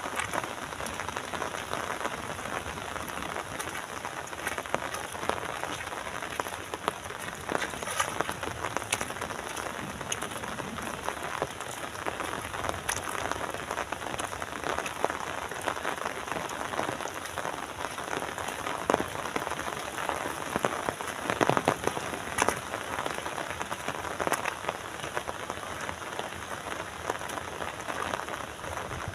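Steady rain falling, an even hiss dotted with frequent sharper taps of individual drops.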